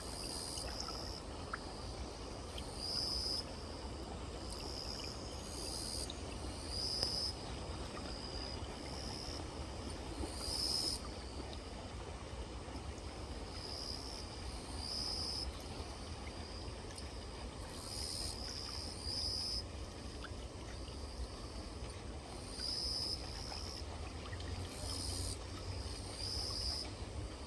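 Grass insects calling in short high-pitched bursts, repeated every second or two, over a steady low rumble.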